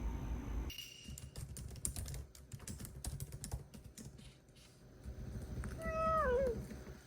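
A run of light clicks and taps for a few seconds, then a British shorthair cat meows once, the call falling in pitch, about six seconds in.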